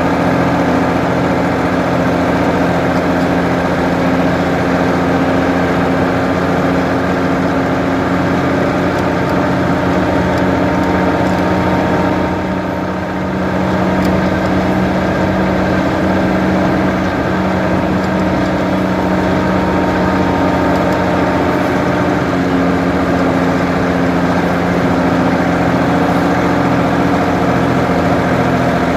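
Ford 550 backhoe's diesel engine running steadily, with a brief dip in level about halfway through.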